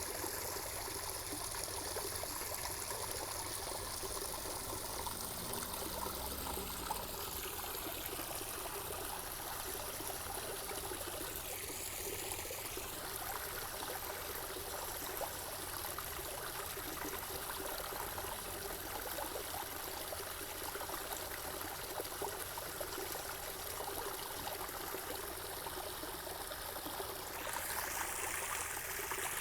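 Running water trickling and splashing steadily, like a small stream, growing a little louder and brighter near the end.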